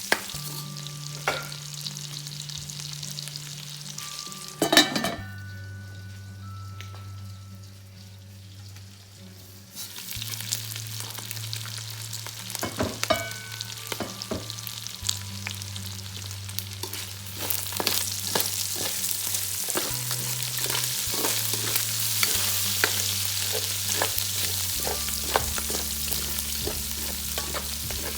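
Food sizzling as it fries in a pan, with a utensil clicking and scraping against the pan as it is stirred. There is one loud clatter about five seconds in. The sizzle grows stronger from about ten seconds in.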